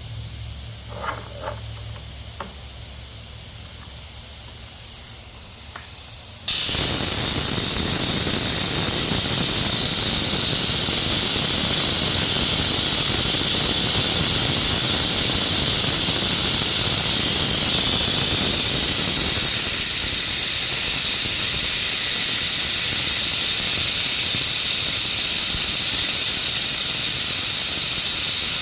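A suction tool switches on abruptly about six seconds in and runs with a loud, steady rush of air, sucking stale gasoline out of a lawn mower's fuel tank. Before it starts, a leaky compressed-air hose hisses steadily.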